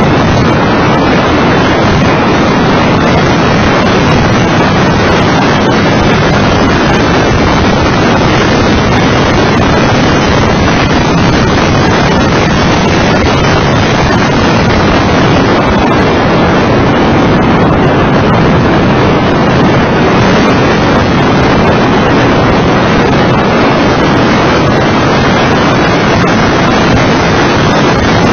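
Loud, steady wind noise buffeting the microphone of a camera mounted on the outside of a Mitsubishi FTO GPX at track speed, with the car's engine and road noise blended in beneath it.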